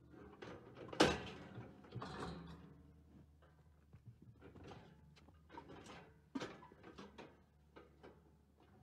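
Galvanised steel cattle head bail clanking and rattling as a cow pushes into it and the auto head yoke catches her head, with a loud metal clang about a second in and smaller knocks after.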